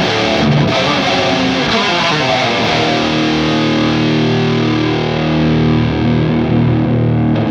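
Electric guitar played through the SideFx Triamp prototype preamp pedal with a distorted tone: a quick riff of picked notes, then a chord held and left ringing from about three seconds in.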